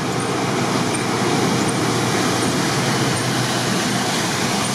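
Jeep Cherokee XJ driving hard through deep mud and water: the engine works under load over a steady churning wash of mud and water thrown by the wheels, swelling slightly at first.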